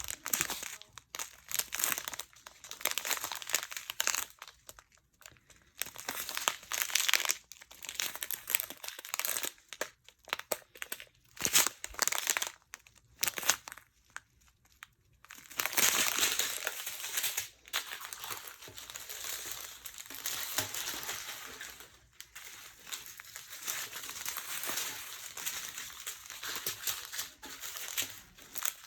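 Small plastic bags of diamond-painting drills crinkling and rustling as they are handled, in irregular bursts with short pauses, then more steadily through the second half.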